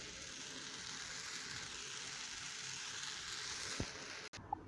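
Stir-fried rice noodles sizzling in a hot wok, a steady frying hiss, with one soft knock near the end. The sizzle cuts off abruptly just before the end.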